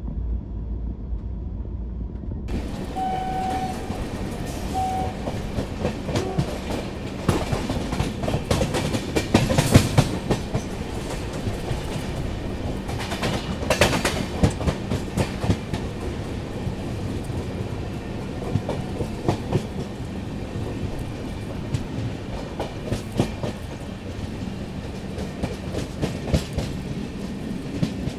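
A passenger train running on rails, with a steady rumble and dense clickety-clack of wheels over rail joints. The clatter is heaviest about ten and fourteen seconds in. For the first couple of seconds only a low rumble is heard, then the full running noise cuts in.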